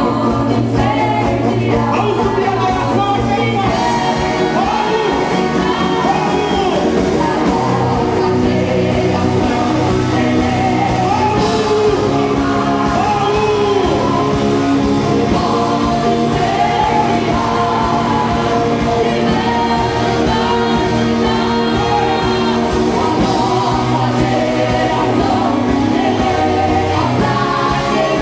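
Live worship music: a voice singing a melody over a band with a steady drum beat and sustained chords.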